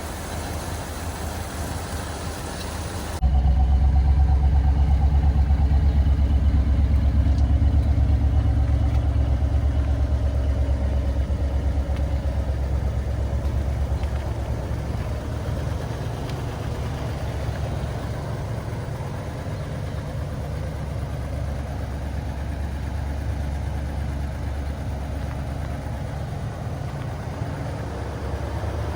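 1978 Ford Country Squire's 351 V8 idling. About three seconds in the sound jumps to a much louder, deeper idle, which eases down over the next ten seconds or so and then stays steady.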